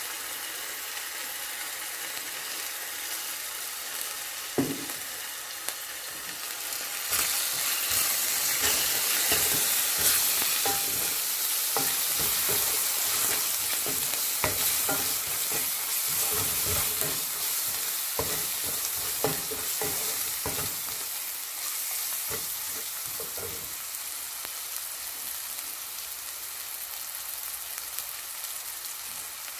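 Onions, garlic and green chilies sizzling in oil in an aluminium karahi, with a wooden spoon scraping and knocking against the pan as freshly added ground spices are stirred in. The sizzle and stirring grow louder about seven seconds in and ease off after about twenty seconds.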